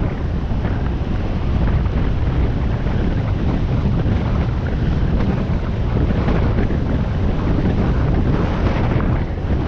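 Steady wind noise buffeting the microphone of a camera on a moving motorcycle, a loud even rush heaviest in the low end.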